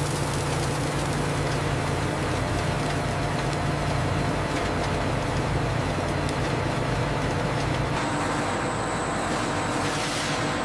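Industrial grinding machinery running steadily, a low hum under a constant rushing noise. About eight seconds in the sound changes: the hum drops back and a thin high whine comes in.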